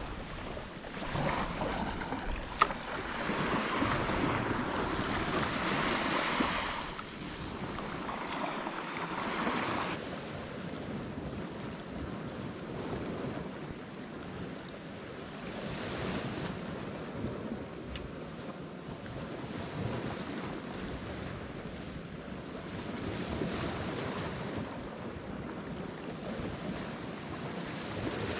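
Small waves breaking and washing up a sandy beach, swelling and fading every several seconds, with some wind on the microphone. A few brief clicks, the sharpest about two and a half seconds in.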